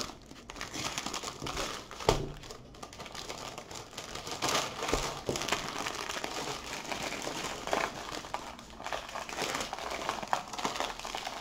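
Clear plastic wrapping crinkling and rustling as a rolled diamond painting canvas in its plastic sleeve is handled and worked loose, with a single knock about two seconds in.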